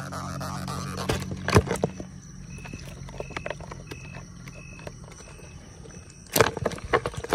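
Night chorus of calling animals: a short high chirp repeating about every half second over a steady high whine, with a low hum in the first couple of seconds. Sharp knocks and rustles come about a second in and again near the end, and they are the loudest sounds.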